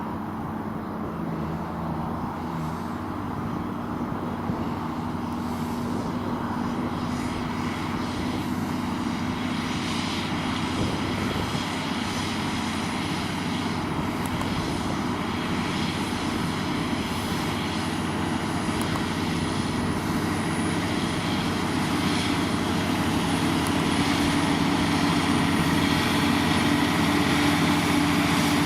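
Diesel engine of a New Holland tractor working under load while ploughing: a steady drone that grows gradually louder.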